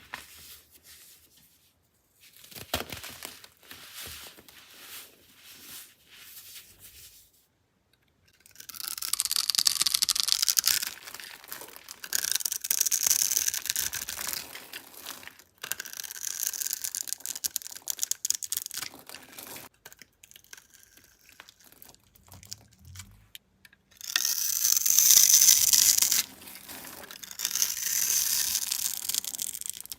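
Dry soap being cut and scraped: small scattered crackles at first, then from about nine seconds in a series of crisp scraping, crumbling strokes, each lasting about two seconds.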